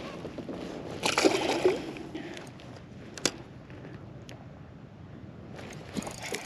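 A splash and slosh of water about a second in, as a released porgy (scup) is dropped back into the sea beside the kayak. A single sharp click follows a couple of seconds later.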